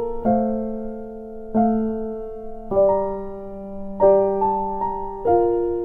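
Background music: slow piano chords, a new chord struck about every second and a quarter, each one fading out before the next.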